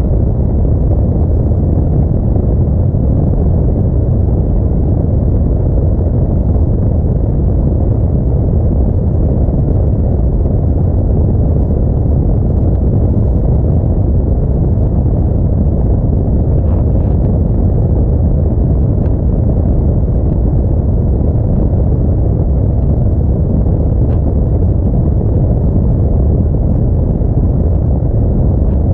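Steady low rumble of an Audi A4 driving on a snowy road: road, engine and wind noise that stays even throughout.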